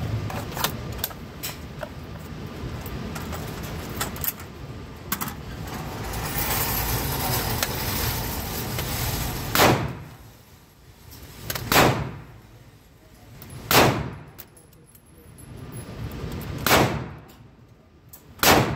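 Handling noise with scattered clicks, then five gunshots spaced about two seconds apart, each with a short echo in an indoor shooting range.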